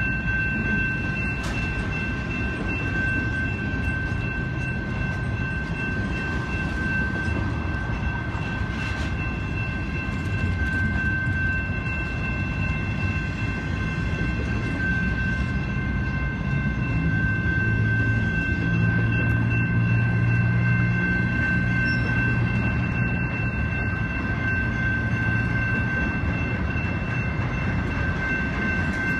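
Intermodal freight train's flatcars loaded with truck trailers rolling past: a steady rumble and rattle of wheels on rail, with a steady high-pitched ringing over it. A deeper hum swells in a little past halfway and fades near the end.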